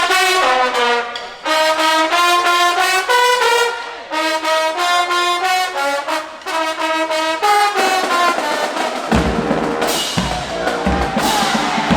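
High school marching band brass playing a melody in short phrases with brief breaks. About three-quarters of the way through, the full band joins and bass drums start hitting.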